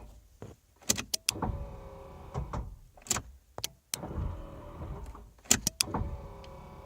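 Pop-up headlight motors of a 1989 Dodge Daytona humming as the headlights are cycled down and up, three runs of a second or two each, with sharp clicks between the runs. The headlights now move normally again after the headlight control module was resoldered.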